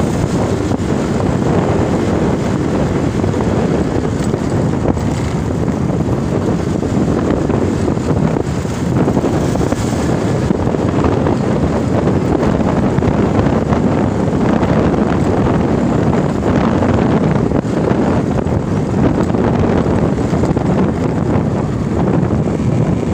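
Steady wind roar on the microphone of a moving motorcycle, with the motorcycle's engine and road noise underneath.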